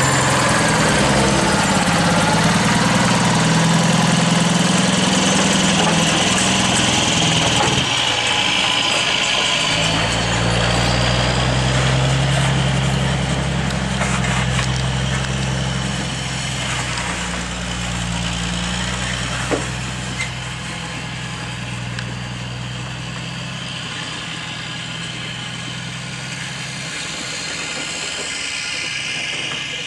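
Log truck engine running at idle, its low note shifting in pitch several times, with a couple of short sharp clicks about two-thirds of the way through.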